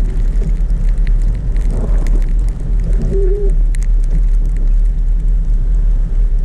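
A car driving through snow, with a steady low rumble of engine and tyres and scattered faint clicks. A short, low squeak-like tone sounds once, about halfway through.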